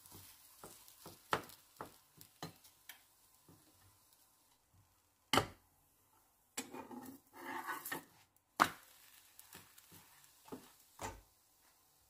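Slotted plastic spatula tapping and scraping against a small stone-coated nonstick frying pan while a thin batter cracker is flipped and lifted: scattered sharp clicks and knocks, with a rougher scraping stretch about seven seconds in.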